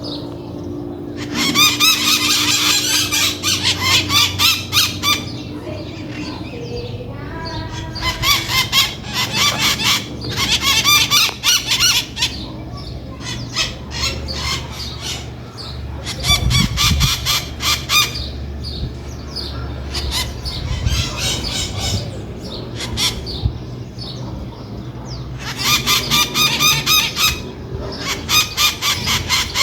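Maritacas (Brazilian parrots) screeching in fast runs of harsh, repeated calls. The calls come in several loud bouts of a few seconds each, with quieter chatter between.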